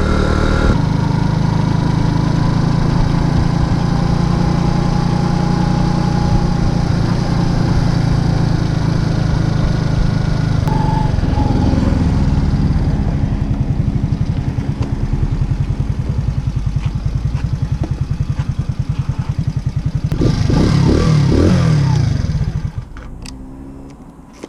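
Racer Alpha RC50 moped's small single-cylinder engine running under way, steady at cruising speed for about ten seconds, then slowing down with its separate firing beats audible. A short rev comes about twenty seconds in, and the engine sound drops away sharply near the end.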